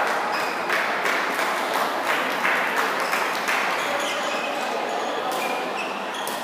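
Badminton match sounds in a large hall: brief high squeaks of shoes on the court and sharp taps, over a steady crowd murmur.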